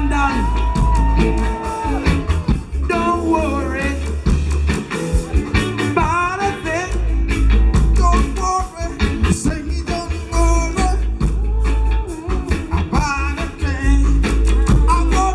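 Live reggae band playing, with a heavy pulsing bass line, guitar and drums, and a voice singing over the groove.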